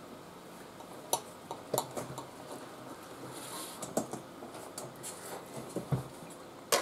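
Steel knives and forks clinking and scraping on ceramic dinner plates as food is cut and picked up, in scattered short clicks about a second apart, the sharpest just before the end.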